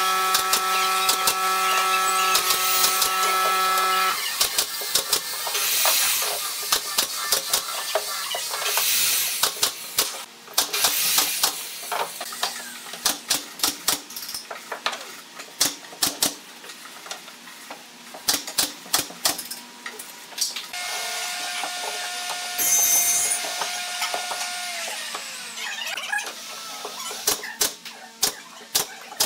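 Pneumatic brad nailer firing nail after nail into pine boards: many sharp snaps, sometimes in quick runs. A steady machine hum under the opening stops suddenly about four seconds in, and a higher steady tone near the end sinks in pitch as it fades.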